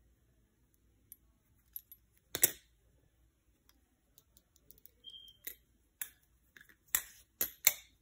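Balisong (butterfly knife) handles and blade clacking against each other and the pins as the knife is flipped: one loud sharp metal clack about two and a half seconds in, then a quick run of clacks near the end, with light ticks between.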